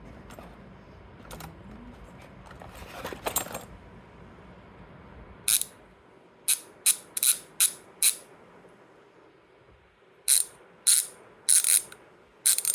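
Rujixu Pro bicycle rear hub with 6 pawls and 120 engagement points, its freehub ratcheting in short, rapid buzzes of clicks. Faint clicking comes first, then about ten loud bursts in the second half.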